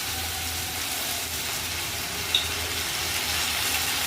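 Chopped vegetables and sauces sizzling in hot oil in a pan, an even hiss throughout, with one short click a little over two seconds in.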